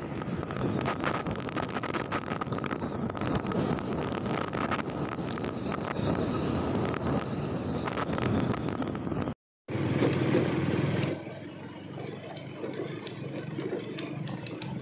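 Motorcycle riding: the engine running under a heavy rush of wind on the microphone. The sound cuts out briefly about nine seconds in, then the ride resumes and turns quieter a couple of seconds later.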